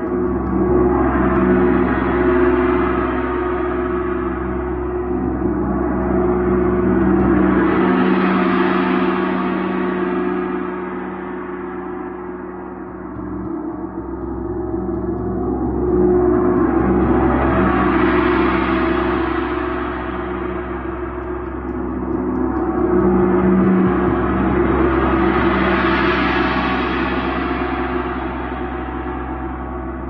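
80 cm chau gong played with a soft-headed mallet: a continuous ringing wash over steady deep tones, swelling and fading about four times as the gong is struck again, each swell bringing up bright shimmering overtones.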